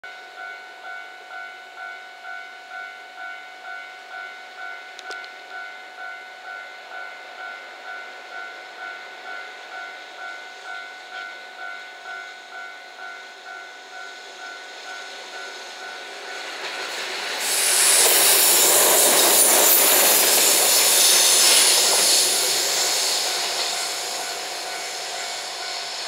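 Japanese level-crossing alarm ringing at about two beats a second while a JR Freight EF210-300 series electric locomotive, running light without a train, approaches. About 17 seconds in, the locomotive's wheel and running noise swells loudly as it passes, then fades.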